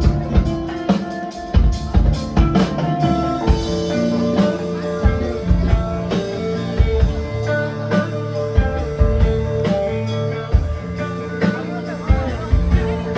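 A rock band plays instrumentally during a sound check: a drum kit keeps a steady beat while electric guitar and bass play held notes, and the band grows fuller about three and a half seconds in.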